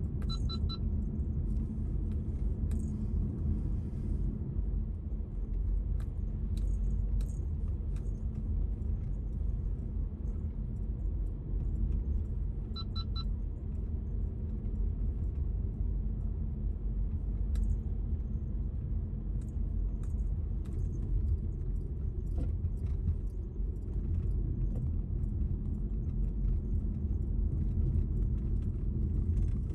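Car driving on an uphill mountain road, heard from inside the cabin: a steady low rumble of tyres and engine, with small jingling and rattling clicks from loose items in the car. A quick run of faint high beeps sounds twice, near the start and about 13 seconds in.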